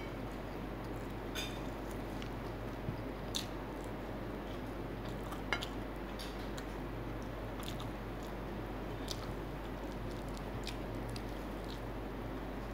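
Eating sounds: chewing, with crispy breaded fried chicken being torn apart by hand, giving a few sharp crackles and clicks over a steady low hum.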